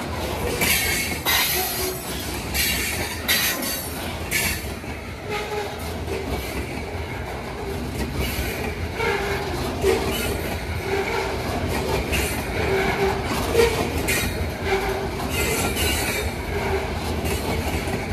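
Steel wheels of a Canadian Pacific grain train's covered hopper cars rolling past on the rails: a steady low rumble with clacking over the rail joints, and short squeals and metallic rings from the wheels that recur more often in the second half.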